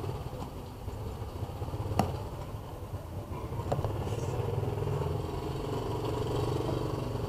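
A motor vehicle engine running steadily, its low hum growing louder in the second half. One sharp click about two seconds in.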